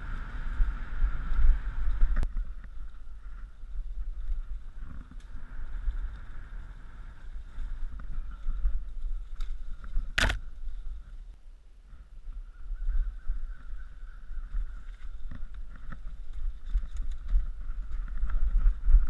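Mountain bike riding fast down a dirt trail, heard through a helmet-mounted action camera: wind buffeting the microphone as a pulsing low rumble, tyres and bike rattling over the ground, and a steady high buzz. One sharp, short noise about ten seconds in is the loudest sound.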